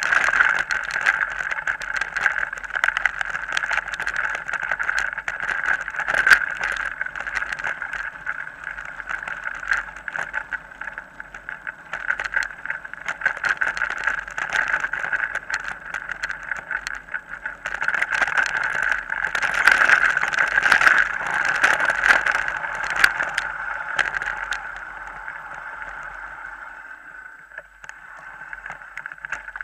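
Mountain bike riding over a rough dirt and gravel forest track, heard from a camera on the bike or rider: a steady rattling rumble of tyres and frame with many sharp knocks from bumps. It gets louder and rougher about two-thirds of the way through, then eases off near the end.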